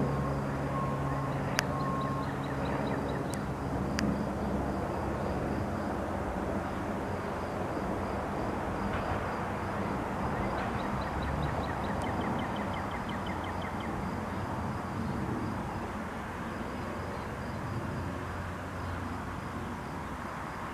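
Cessna 172S Skyhawk SP's four-cylinder Lycoming engine and propeller droning overhead, steady at first, then fading as the aircraft flies away.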